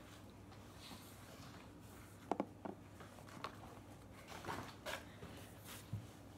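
Faint handling noise of small plastic bottles of food colouring and glitter glue being picked up and packed into a bag: a few scattered light clicks and knocks, with some rustling.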